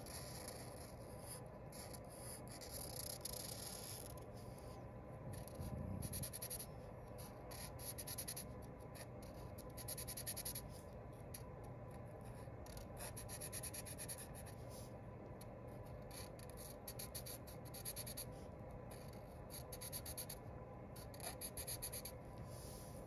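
Felt-tip marker drawing on paper: a long run of short, separate scratchy strokes as lines and a pattern are inked in. A soft thump about six seconds in.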